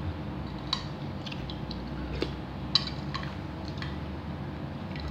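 Metal spoon clinking and scraping in a bowl of chicken soup, a handful of scattered clicks, the sharpest a little under three seconds in, with mouth sounds of eating. A low steady hum runs underneath.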